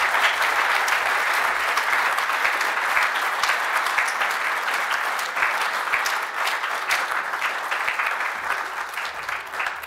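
Audience applauding, a steady dense clapping that thins and fades near the end.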